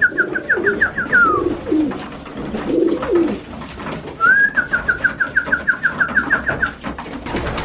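Racing pigeons cooing in the loft, a low repeated cooing throughout. Twice a higher, rapid trill of about six or seven notes a second rings out over it.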